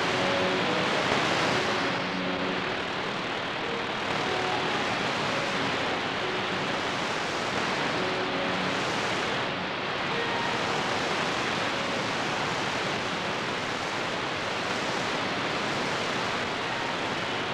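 Shortwave radio static: a steady hiss from a Retekess V115 portable receiver tuned to a weak, fading signal on 15520 kHz. Faint snatches of tones show through the noise in the first few seconds and again about halfway through.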